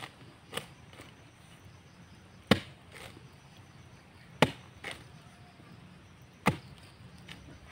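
A digging tool striking the ground in a slow, steady rhythm: four sharp strikes about two seconds apart, with lighter knocks between them, as a hole is dug.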